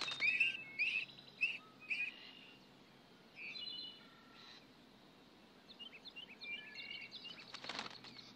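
Northern mockingbird nestlings begging: quickly repeated short chirps that fade out about two seconds in. Faint, scattered bird chirps and whistles follow.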